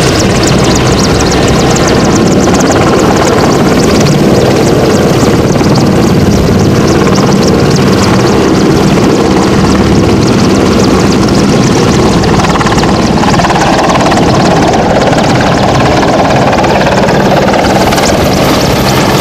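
AW101 Merlin helicopter lifting off and climbing away: loud, steady rotor beat over the turbine engines at take-off power.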